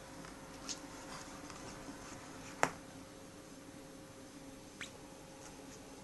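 Handling sounds of a comic book with a stiff lenticular cover being picked up and held: faint crackles and three sharp clicks, the loudest about two and a half seconds in. A steady low hum sits underneath.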